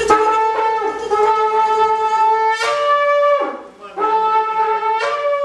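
Shofar blown in two long blasts. Each holds a steady note, then rises sharply to a higher note for its last second or so before breaking off.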